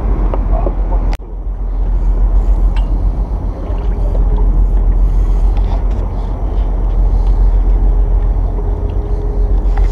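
Steady low rumble of a boat engine on the water, with a faint steady hum joining in now and then. The sound drops out for an instant about a second in.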